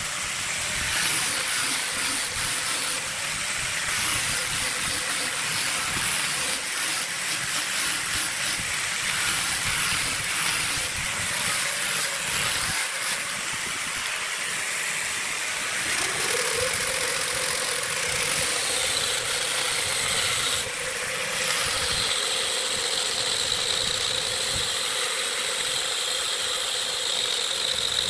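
Angle grinder with a sanding disc grinding the wood of a burl workpiece on a wood lathe, a steady grinding hiss. A little past halfway a motor hum rises in pitch and then holds steady as the lathe spins the workpiece up, and a few seconds later a steady high whine joins in.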